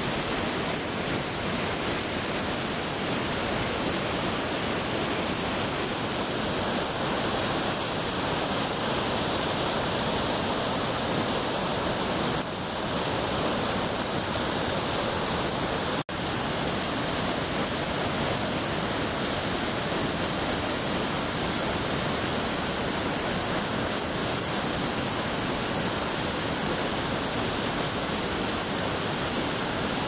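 Flood-swollen Tietê River rushing over rocky rapids and falls after heavy rains: a steady, loud wash of white water. It cuts out for an instant about halfway through.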